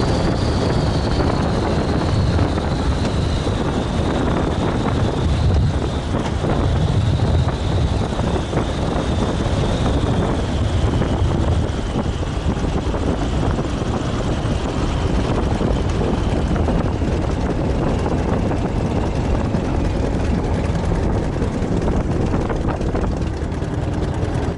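De Havilland DH.83 Fox Moth's Gipsy Major engine throttled back, with propeller, wind rush and wheel rumble, heard from the open cockpit as the biplane touches down and rolls out on the runway. A high whine slowly falls in pitch as the aircraft slows.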